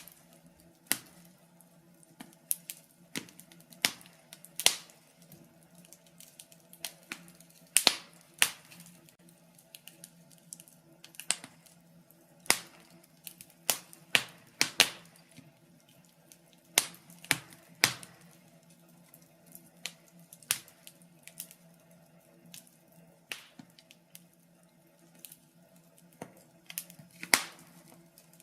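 Wood fire burning in a fireplace, crackling with irregular sharp pops and snaps, one to three a second, some much louder than others.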